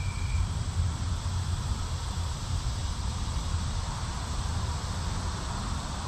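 Steady outdoor background noise: a constant low rumble under a broad hiss, with a thin, high, steady insect buzz above it.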